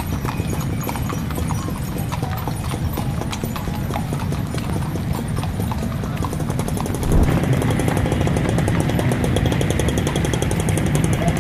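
Horses' hooves clip-clopping on a wet paved street as a horse-drawn carriage passes, over steady background noise that steps up louder about seven seconds in.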